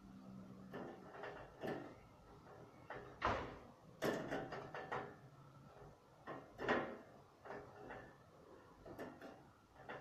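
Scattered knocks, bumps and clicks of handling in a room, like a door or drawer being moved out of sight, the loudest about three, four and seven seconds in.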